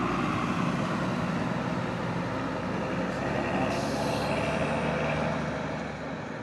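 A heavy road vehicle's engine running as it passes on the road, a steady mechanical din that drops in loudness near the end.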